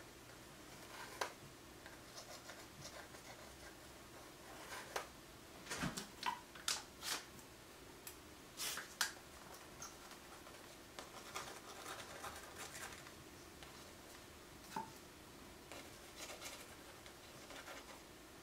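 Faint scratching and scattered light clicks of a fine paintbrush working on a paper journal page, with a cluster of sharper taps midway.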